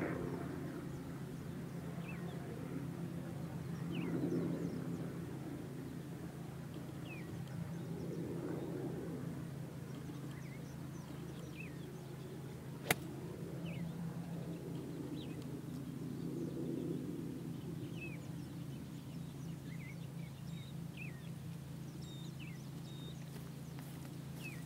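A 7-iron strikes a golf ball with one sharp click about 13 seconds in. Around it birds chirp in short calls over a steady low hum that swells and fades every few seconds.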